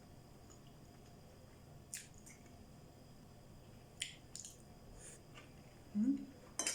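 Faint, close-up eating sounds: a few wet mouth clicks and smacks while chewing. A short low sound about six seconds in is the loudest moment.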